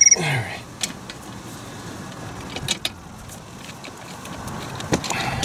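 Scattered, irregular metallic clicks and clinks of a hand wrench working the brake caliper bolts as they are snugged down.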